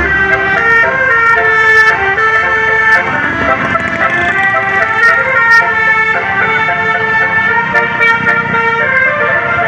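Bus telolet horn playing a tune: several air-horn tones sounding together and stepping from note to note, loud and continuous.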